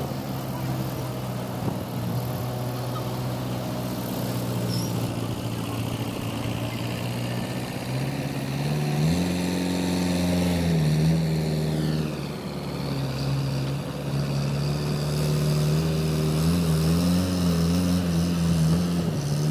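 Diesel engine of a mobile crane running steadily, revving up about nine seconds in and holding the higher speed as it hoists a grapple load, with the revs wavering again near the end.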